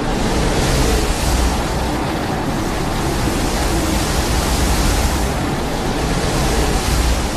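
Film sound effect: a loud, steady rushing noise over a deep rumble, swelling and easing every second or two.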